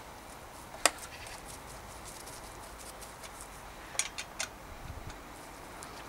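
Small metal clicks of a hex key seating in and turning a V-brake mounting bolt: one sharp click about a second in, then three quick clicks around four seconds in, with faint handling rustle between.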